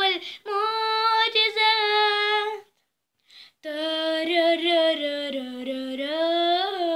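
A young girl singing unaccompanied, holding long, wavering notes. She breaks off for about a second halfway through, then sings on.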